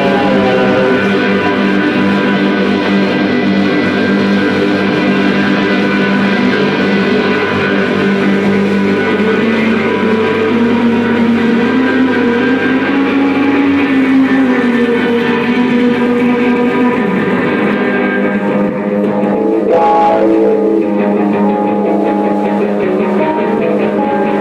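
Rock band playing live, led by electric guitars holding sustained, ringing chords over a bass line. A little after halfway through a guitar note bends slowly, and near the end the sound thins out in the upper range.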